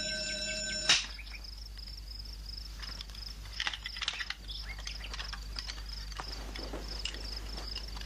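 An electric doorbell ringing continuously is cut off by a sharp bang about a second in. After that, crickets chirp steadily, with a few scattered clicks and knocks.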